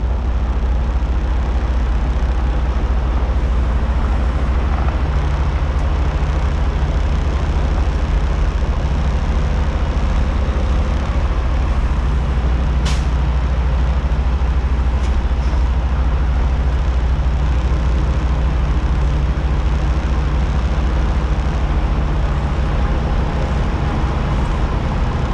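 Semi-truck diesel engine running steadily at low revs, heard from outside the cab, with one short sharp click about halfway through.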